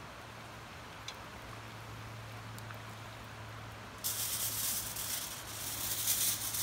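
Aluminium foil crinkling and rustling as it is handled and folded into a parcel, starting suddenly about four seconds in. Before that, only a faint steady low hum and a few small clicks.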